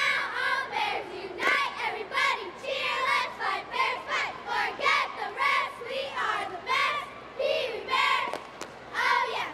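A squad of young girl cheerleaders shouting a cheer in unison, in a steady rhythm of short, high-pitched syllables.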